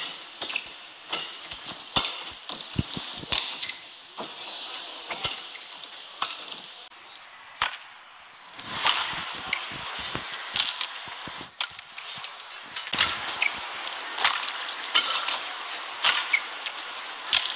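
Badminton rallies: sharp cracks of rackets striking the shuttlecock, coming at irregular intervals a fraction of a second to about a second apart, over a steady hiss of arena crowd noise that swells about halfway through.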